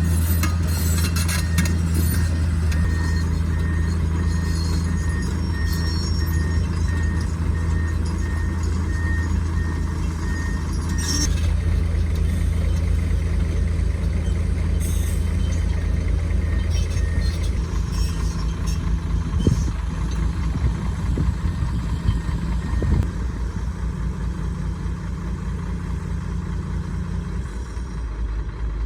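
Heavy diesel engine of earthmoving machinery running steadily, with a reversing alarm beeping at an even pace for about the first ten seconds. A few knocks and clanks follow later, and the low engine drone eases about two-thirds of the way through.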